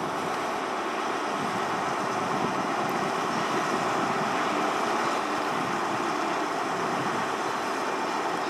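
Class 175 diesel multiple unit running on its underfloor diesel engines as it rolls slowly into the platform, a steady, even engine sound.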